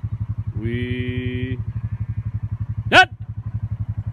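Small engine idling with a fast, even beat. A held, flat-pitched call sounds for about a second, starting about half a second in, and a short, loud cry sweeping sharply upward comes about three seconds in.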